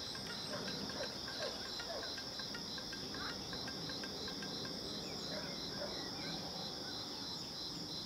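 Chorus of summer insects: a steady high trill with a second, pulsing trill just below it at about three pulses a second, and a few faint short chirps.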